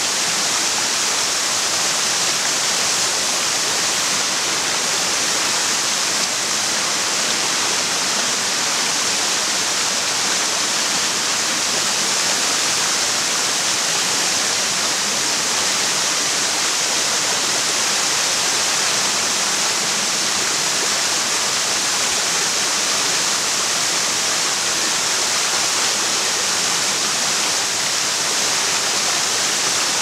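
Waterfall pouring down a rock face into a shallow, stony stream, with the water rushing over the rocks below: a steady, unbroken rush of water with a bright hiss.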